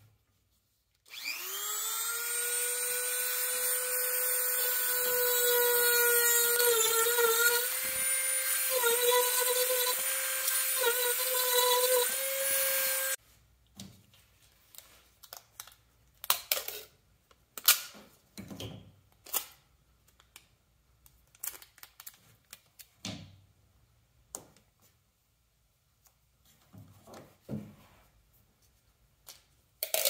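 Small high-speed power tool spinning up about a second in and running steadily, its pitch wavering as it cuts a slot through the kayak's wooden strip deck, then stopping abruptly. After that come scattered clicks and knocks of a packing-tape dispenser being handled.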